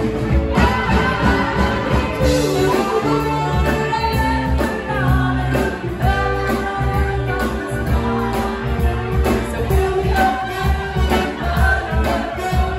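Live soul-pop band playing loudly, with saxophones and trumpet holding notes over electric bass and a steady drum beat, and singing on top.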